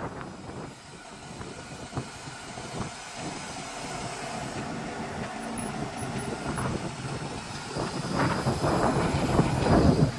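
Towed row-crop planter rattling and clanking as it is pulled across a field, with the tractor's engine running ahead; the clatter grows louder near the end.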